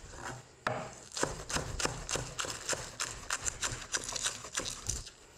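Chef's knife chopping scallions on a wooden cutting board: a string of quick knocks of the blade against the board, about three a second.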